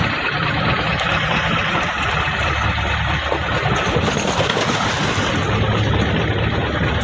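Fishing boat's engine running steadily, a low hum under a loud, constant rush of wind and sea.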